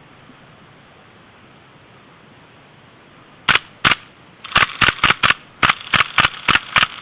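Airsoft guns firing sharp single shots, starting about halfway through: two shots, then a run of about nine at roughly three a second.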